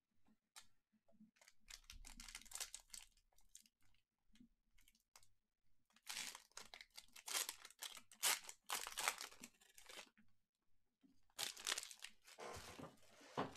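Foil trading-card pack wrapper being torn open and crinkled by hand, in three spells of rustling with short pauses between.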